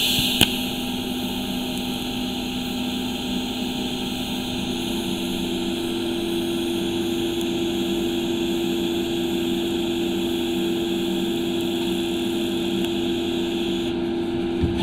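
TIG welding arc on a stainless steel exhaust pipe: a steady hiss and buzz. It starts abruptly with a crackle and stops shortly before the end, over a low background hum.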